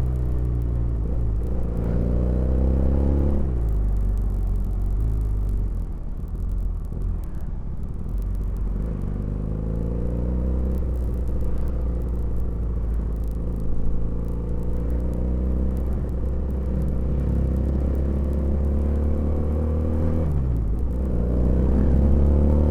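Honda GL Pro motorcycle converted to a 320 cc inline two-cylinder engine, running and being revved: the engine note climbs, drops sharply about three seconds in, runs fairly steady, then dips and climbs again near the end.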